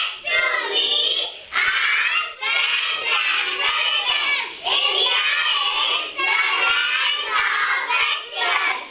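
A class of young children chanting together in unison, a sing-song chorus in phrases of a second or two with short breaks between them.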